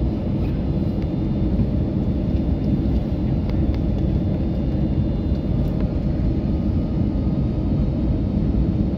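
Steady low rumble of an airliner's jet engines and rushing air heard inside the passenger cabin on approach to landing, with a faint steady whine above it.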